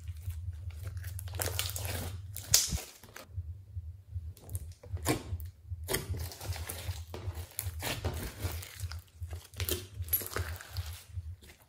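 Glossy foam slime being stretched, folded and squeezed by hand, with irregular wet crackles and pops as air pockets in it burst, and one sharp pop about two and a half seconds in.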